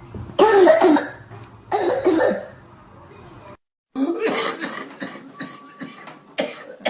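A person coughing: two loud, hoarse coughs, then a sudden cut a little over three and a half seconds in, followed by a run of shorter, quicker coughs.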